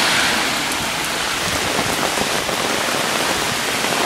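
Heavy typhoon rain pouring down, a steady dense hiss.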